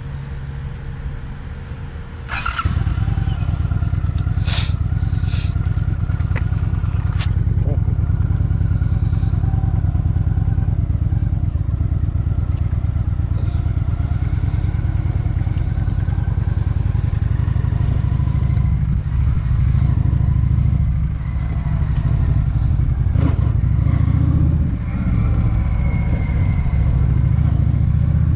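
Honda Shadow Phantom's 745 cc V-twin engine running as the motorcycle is ridden: a steady low rumble that gets louder about two and a half seconds in. A few sharp clicks follow a few seconds later.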